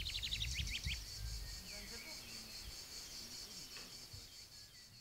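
Outdoor summer ambience: a steady, pulsing chorus of insects, with a bird singing a quick run of notes in the first second over a low rumble. The whole ambience fades out gradually toward the end.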